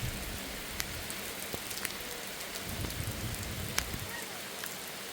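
Steady heavy rain falling, with a few sharp taps of single drops landing close by scattered through it.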